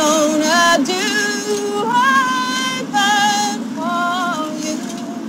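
Music: a woman singing long held notes with a slight waver over a steady accompaniment, a little softer toward the end.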